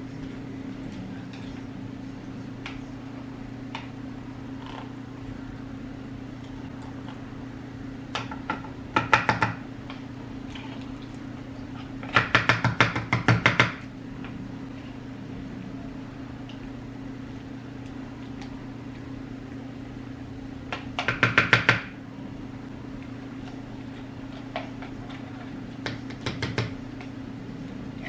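Kitchen utensil and container handling: three short spells of fast clattering and scraping, the loudest about twelve seconds in, plus a few single clicks, over a steady electrical hum from a kitchen appliance.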